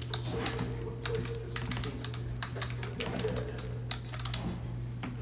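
Typing on a computer keyboard: quick, irregular key clicks that thin out near the end, over a steady low hum.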